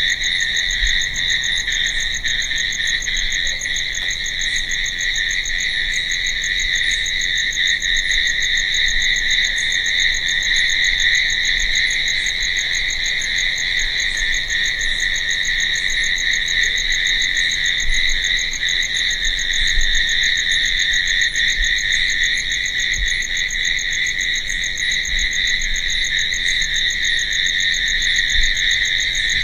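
Crickets chirping in a steady, unbroken chorus, high-pitched, with no breaks or changes.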